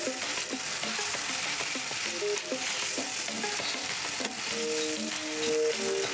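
Chicken pieces frying and sizzling in spiced curry paste in a nonstick wok, with a wooden spatula stirring, scraping and knocking against the pan: the bhuna stage, where the meat is fried in its masala.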